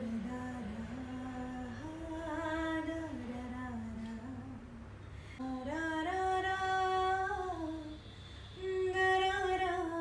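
A woman's voice singing a slow melody in long held notes that slide up and down between pitches, with short pauses between phrases.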